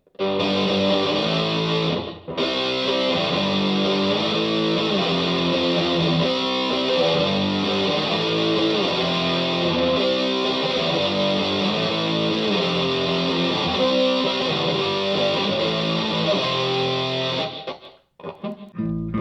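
Electric guitar (a Les Paul-style Vintage V100) played through a DigiTech GNX3 multi-effects preset with a distorted tone, running through a riff of changing notes. It breaks off briefly about two seconds in and stops near the end, followed by a few short choppy notes.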